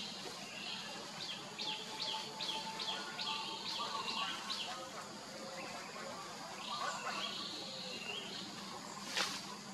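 A quick run of about eight short, high, falling chirps, then a few more chirps later on, over a steady outdoor background hiss. A single sharp click comes near the end.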